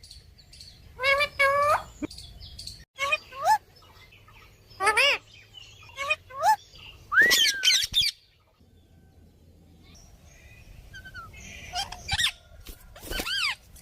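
Pet talking birds, a ringneck parrot and a myna, giving a run of short screechy calls a second or two apart. The loudest and longest call comes about seven seconds in, then there are a few quieter seconds before more calls near the end.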